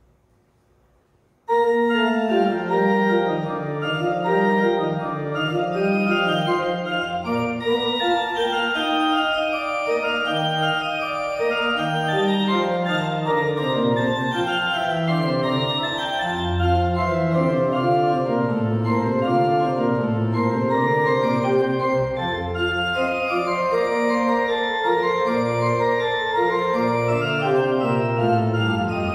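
A pipe organ starts suddenly about a second and a half in, after near silence, playing the postlude in full sustained chords; deep pedal notes join around seven seconds in.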